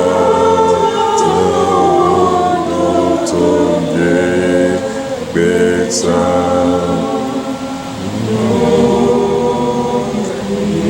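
Group of voices singing a slow gospel hymn in long held notes, phrase by phrase, with short breaks between phrases.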